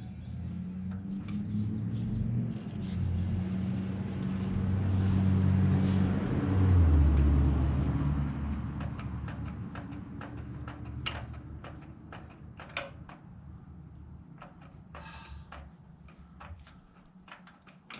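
A low engine rumble that builds to a peak about seven seconds in and then fades away, like a vehicle passing by, followed by scattered clicks and knocks.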